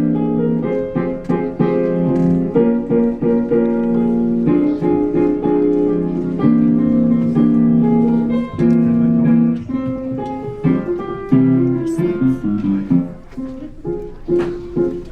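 Piano music playing a run of held chords and notes.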